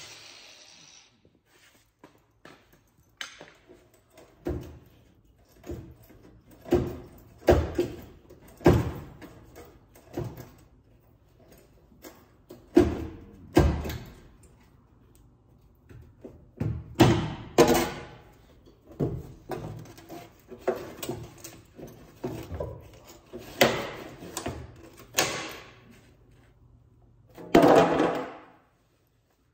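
Irregular knocks and thunks from sheet-metal work on a 1995 Chevrolet Caprice wagon's rear wheel well after cutting it, with a longer, louder clang near the end. At the very start an angle grinder stops and winds down.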